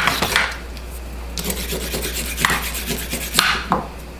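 Vegetable peeler scraping down a raw carrot, several peeling strokes at uneven intervals.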